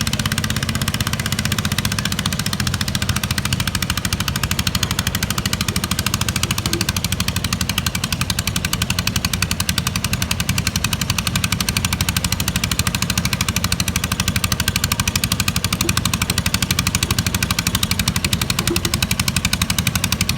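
Pulling lawn tractor's engine running hard at high revs, a fast, steady rattle of exhaust pulses that does not let up.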